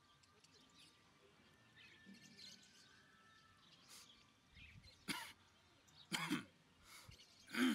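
Faint bird chirps in the background, then three short, loud bursts from a person's voice about a second apart, the last one the loudest.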